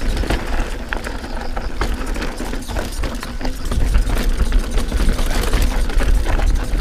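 Canyon Spectral AL full-suspension mountain bike rattling down a loose, rocky trail: tyres crunching over stones and the bike clattering with many irregular knocks, over a steady rumble of wind on the microphone.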